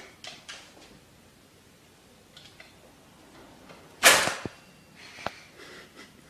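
Kitchen drawer pulled open by a cat, sliding out with one sudden loud rush about four seconds in, then two sharp clicks; faint scuffs before it.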